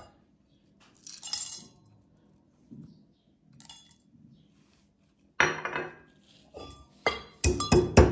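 Whole spices tipped from a glass bowl into a brass mortar with a brief rattle and a few clinks. Then a brass pestle starts pounding them near the end, sharp metallic strikes about three a second.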